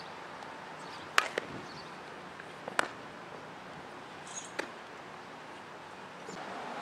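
Softball fielding drill: a few sharp knocks of the ball being hit and caught, a strong pair about a second in, another near three seconds and a weaker one later, over steady outdoor background noise.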